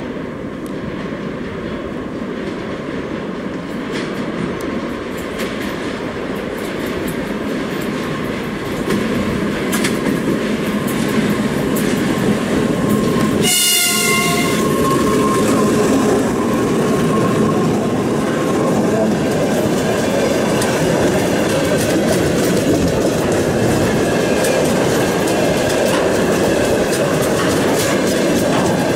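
A two-section 2TE116 diesel freight locomotive approaches with its diesel engines running and grows louder as it draws near. A short horn-like tone sounds about halfway through. Then the loaded tank wagons roll past with a steady clickety-clack of wheels over rail joints.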